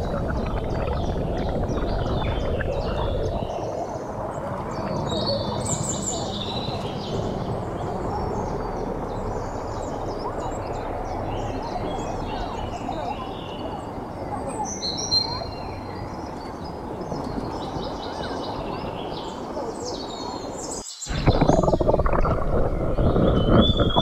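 Steady rush of spring water flowing over stones and a small cascade, with birds chirping and whistling above it. Just before 21 s the sound cuts out abruptly and returns as a louder water rush.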